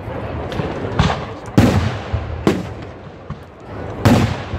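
Aerial firework shells bursting: four sharp bangs in about three seconds, each trailing off in an echo, the last near the end.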